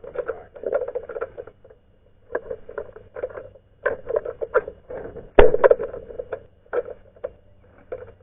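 Irregular clicks and taps from something being handled, with one louder thump about five and a half seconds in.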